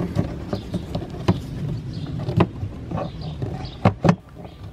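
Plastic cabin air filter tray being slid into its housing under the cowl and pushed behind the casing tabs: an uneven plastic rubbing noise with several sharp clicks and knocks.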